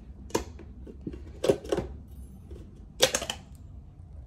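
Sharp knocks and clicks of small kitchen things being handled and set down: one about half a second in, a close pair around a second and a half, and the loudest clatter about three seconds in.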